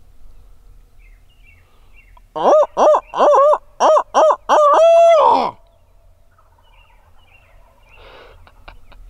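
Loud owl-style hooting, as from an owl locator call used to draw turkey gobbles: a quick string of short hoots ending in one long drawn-out hoot that falls away at the end.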